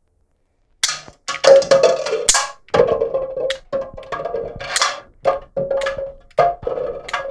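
3D-printed plastic rubber-band revolver being cocked and fired shot after shot: a quick run of sharp clicks and knocks, mixed with hollow plastic cups being hit and clattering off a shelf.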